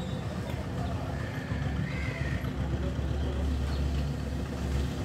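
Steady low engine rumble with street noise, and a brief rising-and-falling whistle-like tone about two seconds in.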